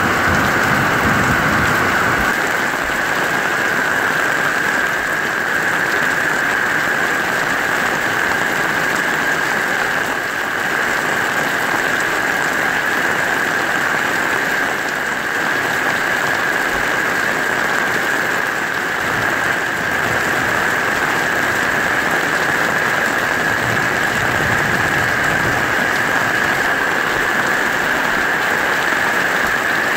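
Heavy tropical downpour: a steady, loud hiss of rain falling on a dirt street, trees and roofs. A low rumble fades out in the first two seconds.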